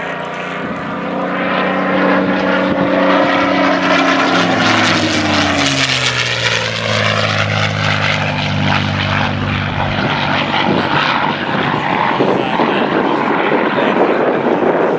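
Supermarine Spitfire PR XI's Rolls-Royce Merlin V12 engine and propeller in a display flypast. The engine note grows louder over the first few seconds, then falls in pitch about five to eight seconds in as the aircraft passes, and stays loud afterwards.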